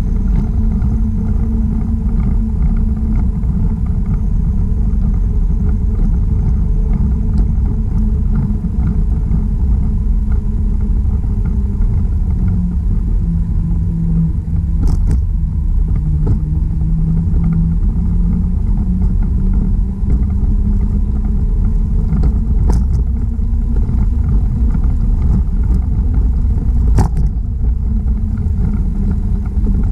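Steady low rumble of wind buffeting the microphone and tyre noise while riding along a paved trail. A low hum wavers in pitch about midway, and three sharp ticks come in the second half.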